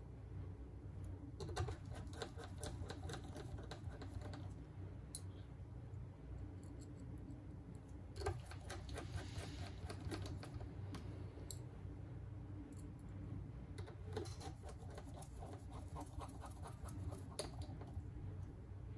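Small clicks and taps of tools and phone parts being handled on a workbench during a smartphone repair, in scattered clusters, over a steady low hum.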